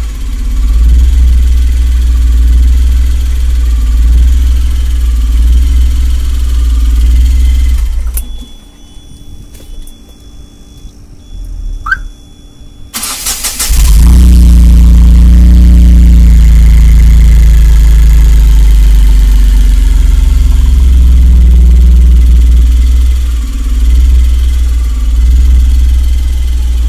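Ashok Leyland Dost's CNG engine running with a heavy low drone. It is switched off about eight seconds in. After about five seconds of near quiet it is cranked and restarted, and it runs again with a brief rise in revs as it catches.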